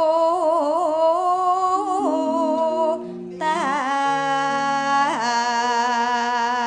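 A sinden, a female Javanese gamelan singer, sings a tembang into a microphone. She holds long notes with a wavering ornament, pauses briefly for breath about three seconds in, then begins a new phrase with a sliding note near the end. Steady instrumental notes step down in pitch underneath her.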